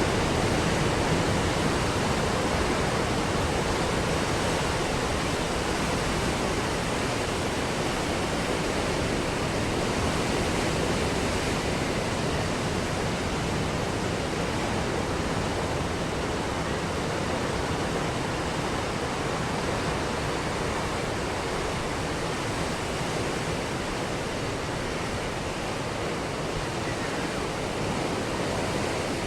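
Ocean surf breaking and washing onto a beach, heard as a steady, continuous rush of water without distinct separate crashes, easing slightly in loudness.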